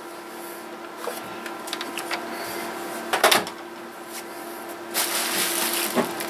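A plastic portable radio-cassette player is handled, with a few light clicks and a short knock about three seconds in as it is set down on the bench. Bubble wrap rustles and crinkles from about five seconds in, over a steady background hum.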